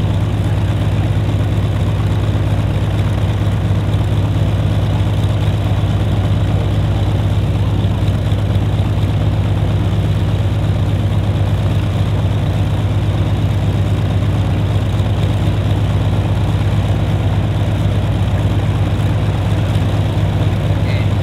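Hawker Sea Fury's big radial engine idling steadily on the ground, a deep even drone with its propeller turning over.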